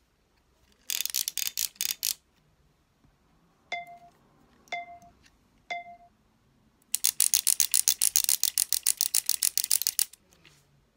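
Improvised sound effects made with small objects: a short burst of rattling clicks, then three single ringing pings about a second apart, then a longer even rattle of about ten clicks a second lasting some three seconds.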